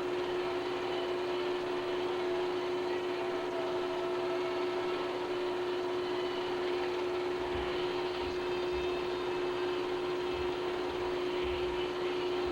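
Steady machine hum with one constant mid-pitched tone over an even hiss, with a few faint low bumps in the second half.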